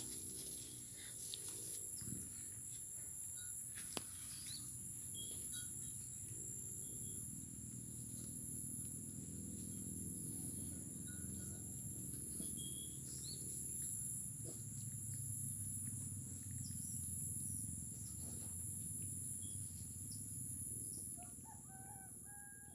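Outdoor insect chorus: a steady high-pitched drone of two continuous tones, over a low steady hum, with scattered short bird chirps that become more frequent near the end and a couple of sharp clicks.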